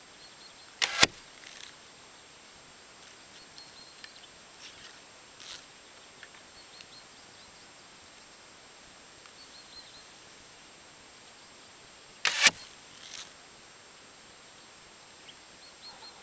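Two shots from a 45-pound hazel sapling flatbow, about eleven seconds apart. Each release is a sharp bowstring snap, followed about half a second later by a fainter knock.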